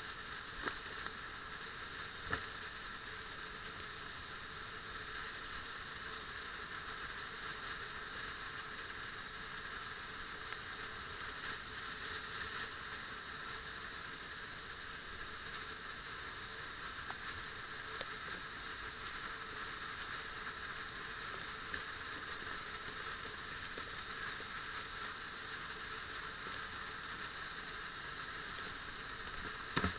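Steady rush of an underground waterfall, with its spray falling directly on a head-mounted camera, so the sound is muffled. There are a couple of faint knocks in the first few seconds.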